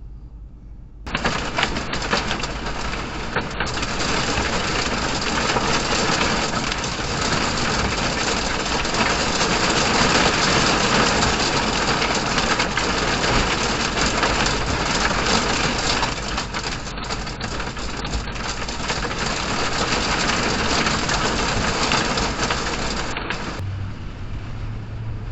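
Heavy rain pounding down, a loud, dense hiss of countless small impacts. It starts abruptly about a second in and cuts off suddenly near the end.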